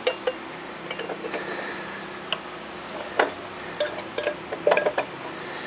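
Irregular metallic clicks, taps and knocks of a new blade and its fastening being handled and fitted onto a metal-cutting chop saw, the sharpest a little over two and three seconds in and a quick cluster near the end, over a steady low hum.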